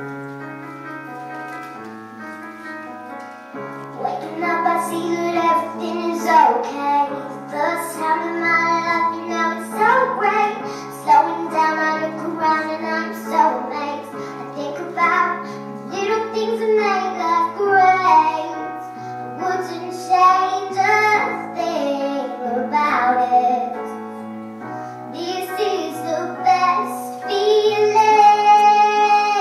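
A girl singing a song into a microphone over a piano accompaniment; the accompaniment plays alone at first and her voice comes in about four seconds in.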